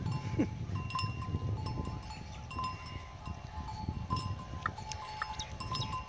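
A pair of yoked bulls pulling a wooden plough through dry soil: short bell-like rings at irregular moments over a low, uneven rumble.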